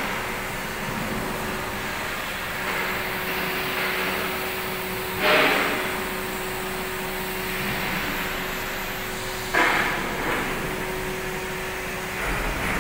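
Steady machinery noise inside an electrocoating (ED) plant, with a steady hum-like tone held through most of it. Two brief louder noises break in, about five seconds in and again about four seconds later.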